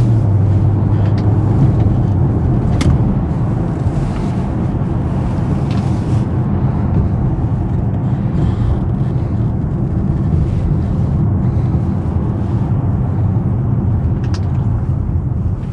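BMW 750i's 4.4-litre twin-turbo V8 running as the car drives, a steady low engine rumble mixed with road noise. Its note holds steady for about the first second, then wavers. A couple of faint clicks come through, about three seconds in and near the end.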